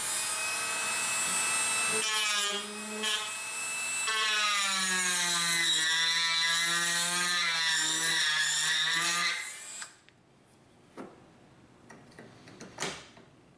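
Dremel rotary tool grinding wood off a rifle stock's fore-end, a steady whine whose pitch sags a few seconds in as the bit bites into the wood. It winds down and stops about ten seconds in, followed by a few faint clicks and scrapes.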